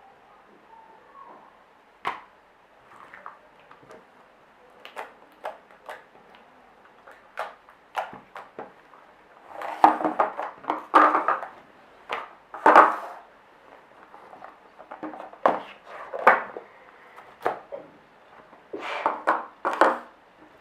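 Soft shaving-foam slime being squeezed and stretched by hand, making irregular wet clicks and squelchy pops, with louder squishing about halfway through and again near the end.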